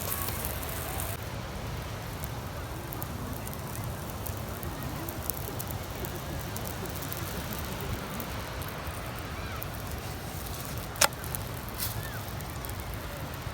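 Open wood-stick cooking fire crackling with scattered small ticks, and one sharp crack about eleven seconds in. A steady low rumble runs underneath.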